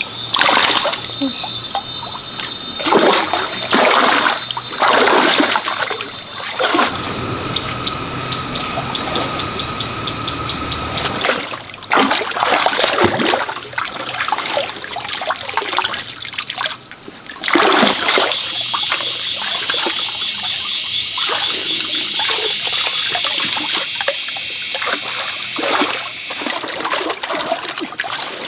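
Water splashing and trickling in a shallow stream, with repeated sharp splashes. A steady high-pitched buzz runs underneath through much of it.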